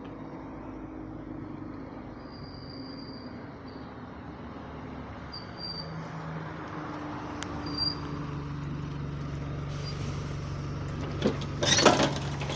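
Bus running, heard from inside the passenger cabin: a steady low engine and drivetrain hum with faint high whines, the hum rising in pitch and holding about six to eight seconds in. Near the end comes a burst of sharp knocks and clatters.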